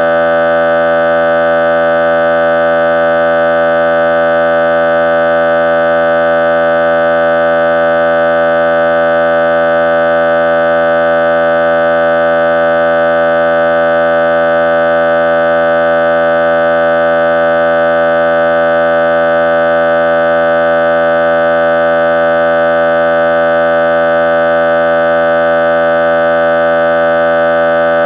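A loud, perfectly steady drone of many tones sounding together, holding the same pitches and level without any change.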